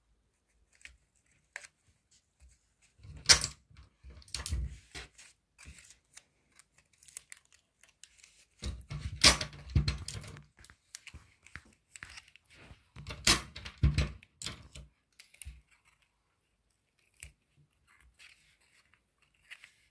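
Paper and adhesive tape being handled: three bursts of rustling with sharp tearing strokes, about 3, 9 and 13 seconds in, as tape is pulled, torn and pressed onto a folded paper box. Light ticks and taps from the fingers come between the bursts.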